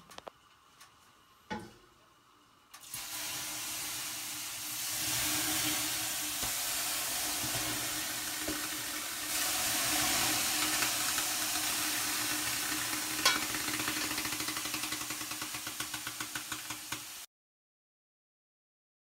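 Water thrown onto the hot stones of an electric sauna heater, hissing and sizzling loudly as it flashes to steam. The hiss starts about three seconds in, swells twice, turns to crackling as it dies down, and then cuts off abruptly.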